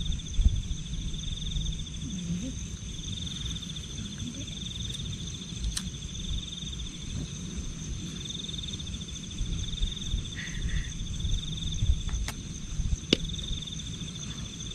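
Steady insect trilling: a fast-pulsing high note that never stops, with a thinner, steadier high tone above it, over a constant low rumble. A few small sharp clicks sound, mostly in the second half.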